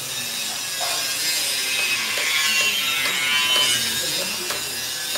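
Meatball machine's stainless steel bowl cutter running: a loud metallic rasping whine with several high tones that swells toward the middle.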